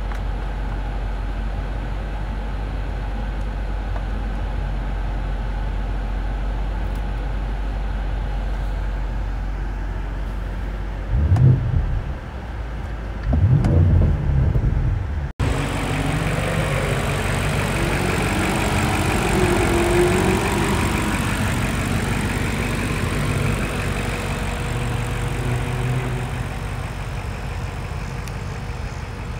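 BMW M850i's 4.4-litre V8 running with a steady low hum, broken by two short, loud low surges about a third of the way in. Just past halfway the sound cuts abruptly to a fuller, busier engine sound.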